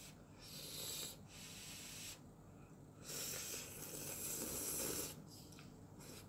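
A person slurping hot instant ramyeon noodles off chopsticks: two long, airy slurps of about two seconds each.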